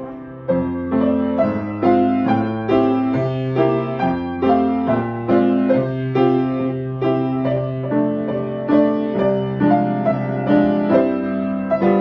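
Piano playing a simple melody of evenly struck notes, about two to three a second, over held low bass notes.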